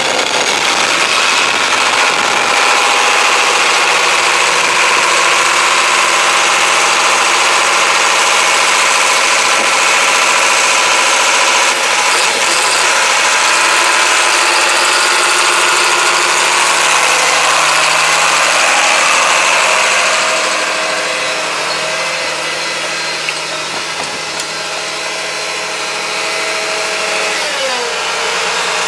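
John Deere 8320 tractor's six-cylinder diesel engine running as the tractor drives. It grows quieter about twenty seconds in, and the engine note falls near the end.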